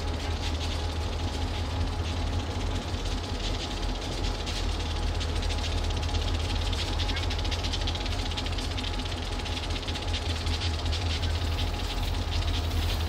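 EMD GP38-2 and GE Dash 8 diesel locomotives idling together: a steady low engine rumble with an even hiss above it.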